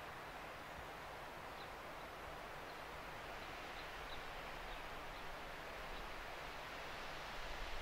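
Steady hiss of outdoor background noise, with a few faint, short high chirps in the middle.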